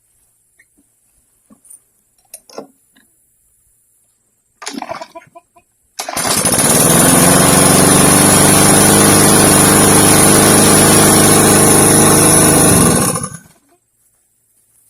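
Walk-behind lawn mower's small gasoline engine being pull-started on its freshly rewound recoil starter: a short rattling pull, then the engine catches about six seconds in. It runs steadily for about seven seconds, then winds down and stops.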